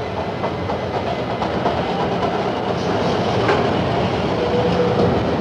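Washington Metro train running along an underground station platform: a steady rumble of wheels on rail that grows slightly louder, with a faint whine near the end.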